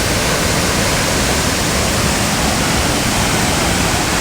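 Steady, loud rush of the O-daru waterfall, falling water making an even noise with no breaks.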